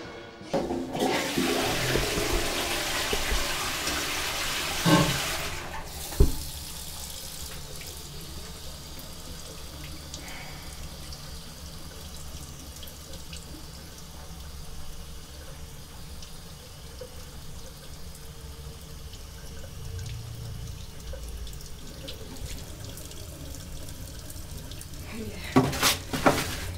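A toilet flushing: a loud rush of water for about five seconds, ending with a thump. Then a low, steady hum of a small room, with a few knocks and clicks near the end.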